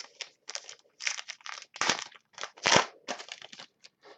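Crinkling and rustling of 2012 Panini Elite football trading cards being handled, in a string of short, irregular bursts, the loudest about two and three seconds in.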